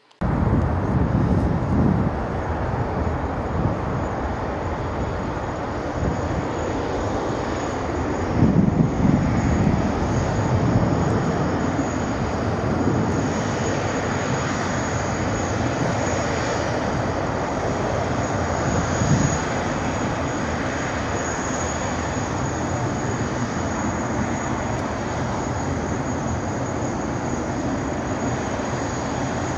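Airbus A380-841 airliner taxiing, its four Rolls-Royce Trent 970 turbofans running steadily at taxi power: a constant high whine over a broad rumble. The rumble swells briefly about eight seconds in.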